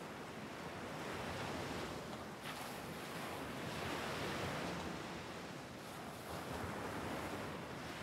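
Ocean waves breaking and washing onto a beach, in a steady wash of surf that swells about two and a half seconds in and again near six seconds.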